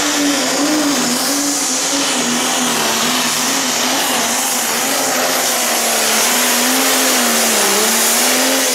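Pro Stock pulling tractor's diesel engine running flat out under load as it drags the weight sled. Its pitch wavers up and down, with a short dip near the end.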